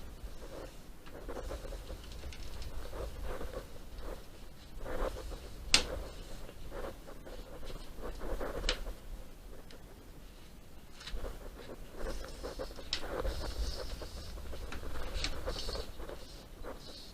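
Irregular scratching and shuffling of hand work on building materials, with two sharp clicks about six and nine seconds in.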